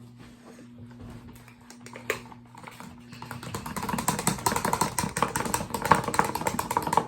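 Sticky glue slime being worked and squished, making rapid wet clicking and crackling that starts about three seconds in and grows louder. The slime is still sticky.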